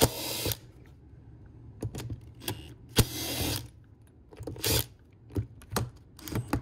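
Cordless impact driver with a T27 Torx bit running in short bursts, backing out the screws that hold the engine assembly in an Echo 2511T chainsaw's housing. There are three bursts of about half a second each: at the start, about three seconds in, and again a little later, with light clicks of the tool and parts between them.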